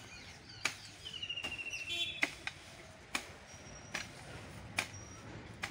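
Hoe blade chopping into hard soil and dry leaves, six strokes about one a second. A bird chirps a short run of notes about a second in.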